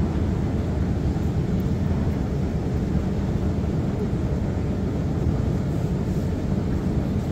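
Steady low rumble of underground railway ambience, even and unbroken, with no single event standing out.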